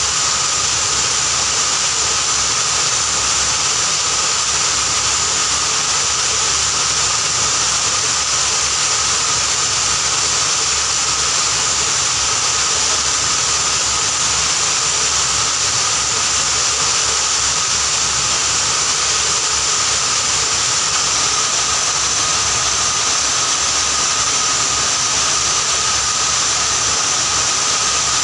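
Sugar-powder grinding machine running under load, grinding sugar into powder: a loud, steady hiss with a high, even whine running through it.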